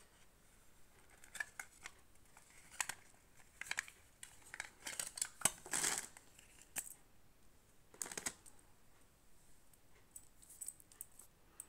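Handling noise from a metal safety razor, its plastic case and a plastic blade pack: scattered small clicks and taps with a few longer rustling scrapes, the loudest about five to six seconds in and again about eight seconds in.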